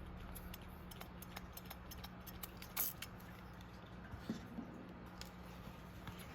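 Faint, scattered clicks and small taps of a folding knife's small metal and ceramic parts being handled, over a steady low hum.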